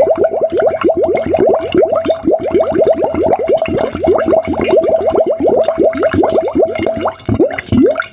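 Water bubbling in a rapid, continuous stream, each bubble a short rising blip. The stream thins briefly about seven seconds in.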